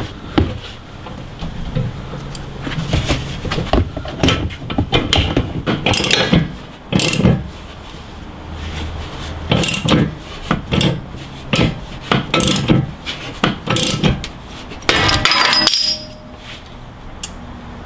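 Metal clicks and clinks from a wrench cranking the forcing bolt of a ball joint puller on a Honda Civic's upper ball joint. Near the end comes a sudden, violent pop with a clatter as the ball joint breaks free of its tapered seat.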